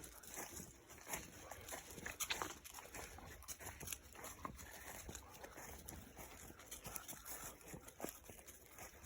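Faint, irregular rustling and crunching of a hiker and a dog walking on the forest floor.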